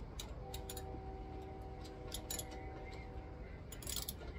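Scattered light clicks and taps of a small electrical module and wiring parts being handled and fitted, with a quick run of clicks near the end. A faint steady hum of a few mixed tones runs from about half a second in to about three and a half seconds in.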